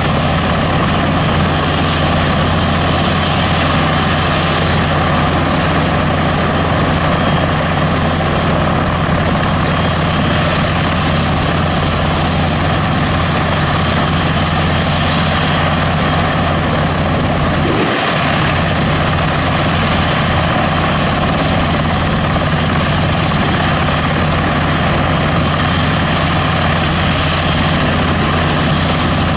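NHIndustries NH90 twin-turboshaft helicopter running steadily on the ground with its main rotor turning, a loud, even mix of rotor and engine noise.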